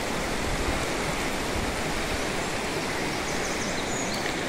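A mountain stream rushing over rocks and fallen logs, a steady, even rush of water.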